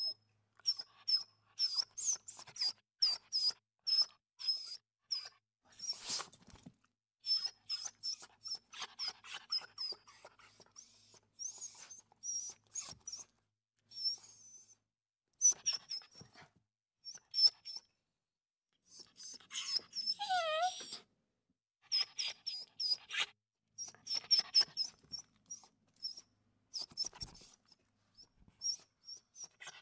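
Puppies squeaking and whimpering: many short high-pitched squeaks come in runs with pauses, and about twenty seconds in there is one long whine that falls in pitch. Small clicks and scuffles sound between them.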